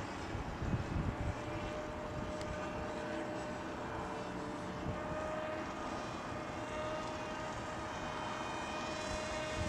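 Scratch-built radio-controlled model airplane's motor and propeller giving a steady whine as it flies, with wind buffeting the microphone in the first second or so.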